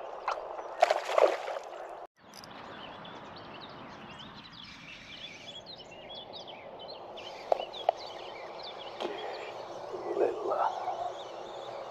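Outdoor ambience: a steady background rush with many small birds chirping, and a few sharp knocks. The sound cuts out briefly about two seconds in.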